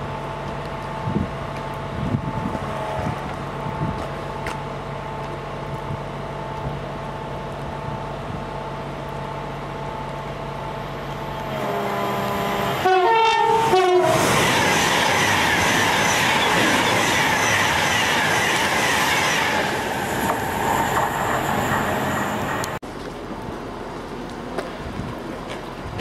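Class 390 Pendolino electric express sounding its horn in short stepping notes as it nears, then rushing through the station at speed with loud wheel clatter for about nine seconds before the sound cuts off suddenly. Before the horn there is a steady hum with a few faint held tones.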